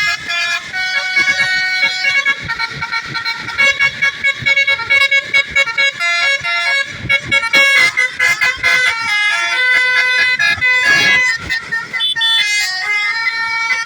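Bus basuri (telolet) musical horn playing a melody: a continuous run of loud horn notes stepping quickly from pitch to pitch.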